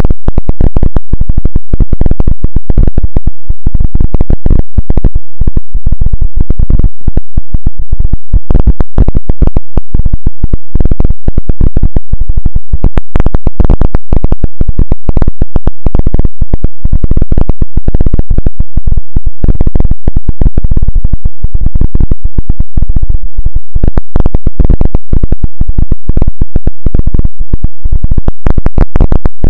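Harsh, heavily distorted crackling noise at full volume: a dense, irregular stream of clicks and crackles with a heavy low end.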